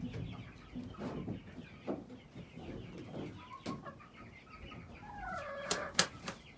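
Chickens clucking with short, scattered calls, one drawn-out bending call near the end. Two sharp clicks come just before the end, the second the loudest sound.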